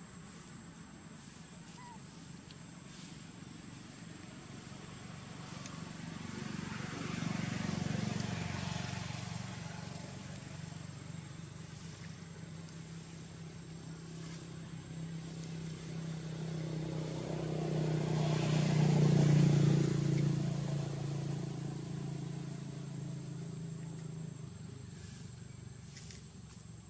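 Motor vehicles passing by twice, their engine sound swelling and fading: a lighter pass about seven seconds in and a louder one peaking around twenty seconds in. A steady high-pitched whine runs underneath.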